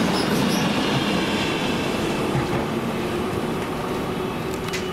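Loaded freight flat wagons rolling past on the rails with a thin high wheel squeal, the noise easing off as the tail of the train goes by.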